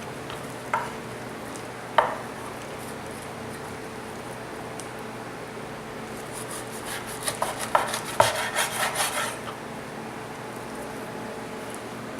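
Knife cutting through a raw whole chicken on a cutting board: two sharp knocks in the first two seconds, then a few seconds of quick crackling clicks from about halfway through as the blade works through skin, cartilage and joint.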